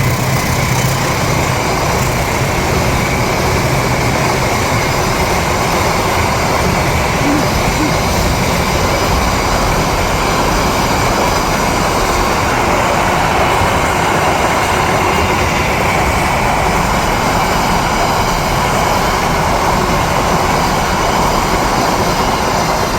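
A train passing close by a level crossing: a long, steady, loud rush and rumble of wheels on rails. A low engine hum fades out in the first couple of seconds.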